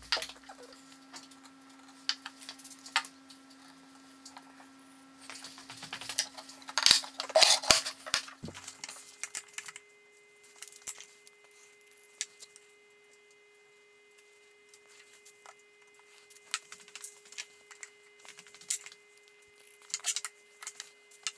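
Pieces of oak and small tools being handled on a wooden workbench: scattered light knocks and clicks of wood set down and shifted, with a denser burst of clattering about seven seconds in, over a faint steady hum.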